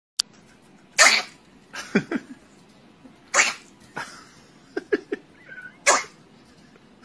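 A chihuahua makes three short, harsh noisy bursts about two and a half seconds apart, with smaller yips or whines between them.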